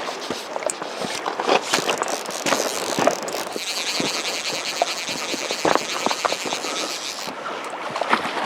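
Fly reel's clicker drag buzzing as a freshly hooked trout pulls line off, starting about three and a half seconds in and stopping abruptly near the end, over splashing and the rush of the river.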